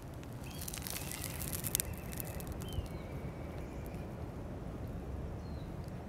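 Dry grass crackling and rustling as a cat noses and nibbles through it, from about half a second to two seconds in, over a steady low outdoor rumble. A short high chirp follows, and another comes about five seconds in.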